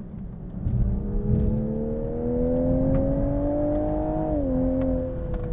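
Toyota GR Supra's B58 turbocharged inline-six accelerating hard, heard from inside the cabin. The engine note climbs steadily, drops sharply a little over four seconds in at an upshift of the 8-speed ZF automatic, then eases down, over a steady rumble of road noise.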